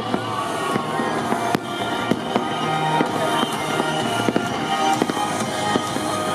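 Aerial fireworks bursting in quick, irregular succession, a string of sharp bangs, with music playing underneath.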